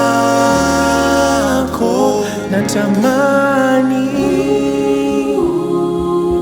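Gospel worship music: singers hold long sustained notes over a bass line that steps down and up every second or so.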